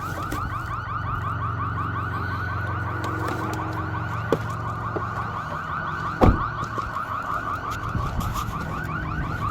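Electronic alarm sounding a rapid warble, several pulses a second, over a low steady hum; a single thump about six seconds in.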